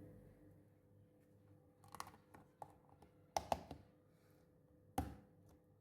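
A few sharp clicks and knocks of tools and metal being handled, the loudest a close pair about three and a half seconds in and another near five seconds, over a faint steady hum.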